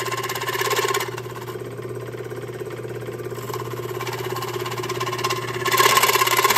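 1950s Delta Rockwell Homecraft scroll saw running, its reciprocating blade cutting through an aluminum part with a rapid, even chatter over a steady hum. The cutting noise drops back a little after about a second in and comes up loud again near the end.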